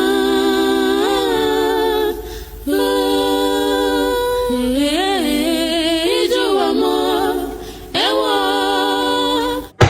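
Music: layered wordless vocal harmonies holding long sung notes, with brief breaks between phrases, cutting off abruptly near the end.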